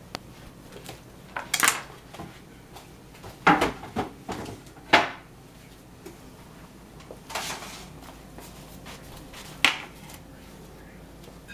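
Kitchen clatter: about half a dozen separate knocks and clanks of cookware and utensils being handled, with a slightly longer scraping noise about seven seconds in.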